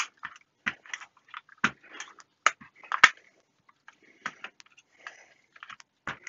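Irregular clicks and short scrapes of small hand tools: sockets from a small driver set being handled and tried on a nut to find the right size.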